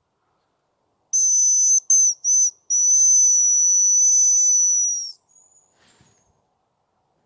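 Hazel grouse decoy whistle blown close by: a thin, high whistle in two short notes, then one long held note. A much fainter, slightly higher whistle follows briefly.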